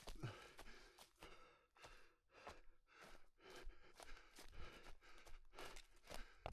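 Faint, heavy breathing of a runner mid-race: rhythmic panting at about two breaths a second.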